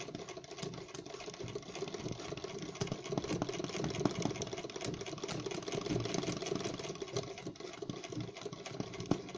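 Sewing machine stitching an embroidery without a break, a fast, even run of needle strokes over the motor's hum.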